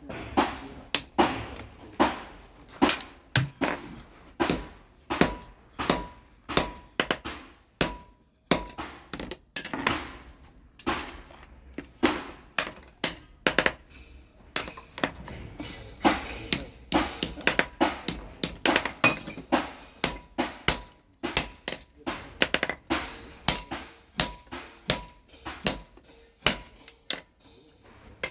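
Hammer blows on steel at the anvil while forging a bellhook machete, about two strikes a second, each with a short metallic ring. The hammering pauses briefly twice, about eight and fourteen seconds in.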